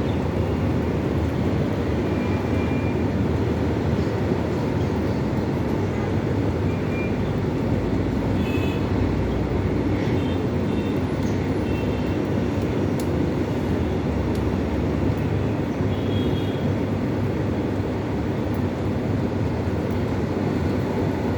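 Steady low rumbling noise throughout, with a few faint, short high chirps now and then.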